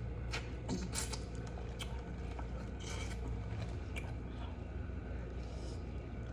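Eating sounds close to the microphone: chewing and handling food, with scattered small clicks and wet snaps over a steady low hum.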